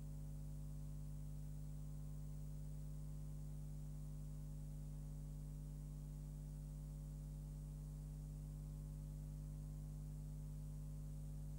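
Steady electrical mains hum with a faint hiss underneath, unchanging throughout, with no sound from the scene itself.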